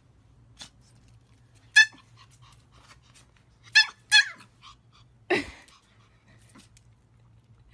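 Pomeranian puppy giving short, high-pitched yips: one, then two close together, then a longer cry that falls steeply in pitch.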